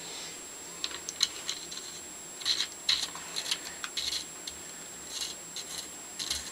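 Irregular light metal clicks and short scrapes as the steel parts of a Stanley No. 113 compass plane are handled and fitted together.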